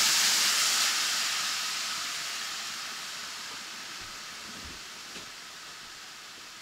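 Water poured into a hot iron karahi of frying chicken: a loud steaming hiss and sizzle that slowly dies away.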